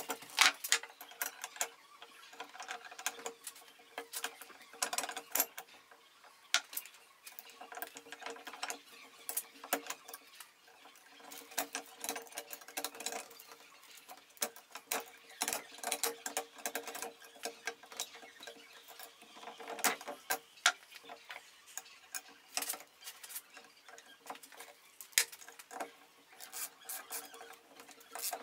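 Metal parts of a Hi-Lift jack's mechanism being handled and fitted with hand tools: irregular light metallic clicks and taps, over a faint steady hum.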